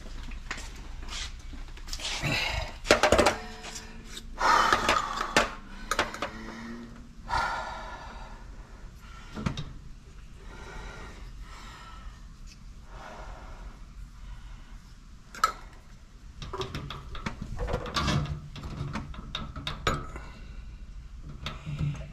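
Hands handling tools and CPVC pipe fittings on top of a water heater: irregular clicks, knocks and clatter, with the loudest knocks about three and five seconds in.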